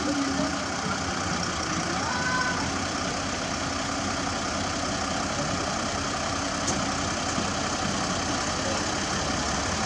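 Diesel engines of heavy road-paving machinery running steadily, a constant drone with no clear change in speed.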